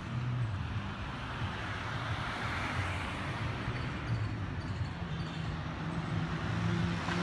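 Street traffic noise: a steady hum of road traffic with a low rumble, swelling about two to three seconds in as a vehicle goes by.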